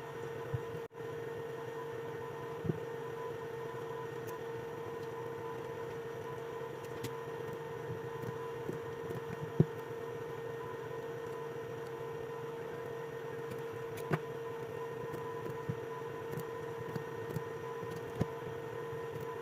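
Steady electrical hum from bench equipment, with a few light, sharp clicks at irregular moments as nickel strip is cut and welded onto the cells of a lithium-ion battery pack.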